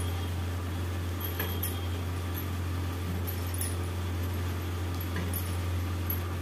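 Bangles clinking lightly several times as hands roll dough balls between the palms, over a steady low hum.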